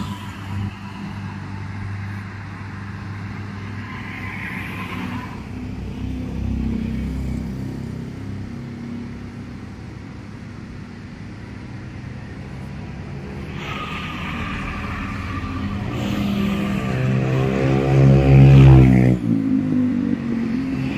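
Traffic passing on a multilane toll highway: steady tyre and engine noise of cars and buses going by, heard from above the road. Near the end the loudest vehicle passes close, its engine hum building and then dropping in pitch as it goes by.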